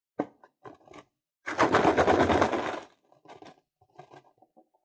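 Scissors cutting off the knotted rubber neck of a slime-filled balloon: a click, then a loud rasping cut of rapid fine crackles lasting about a second, followed by faint rubbery handling sounds.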